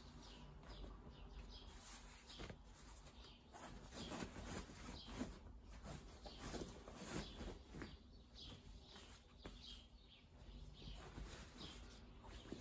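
Faint rustling of a folded graduation gown and a fabric tote bag being handled and packed, in irregular soft bursts.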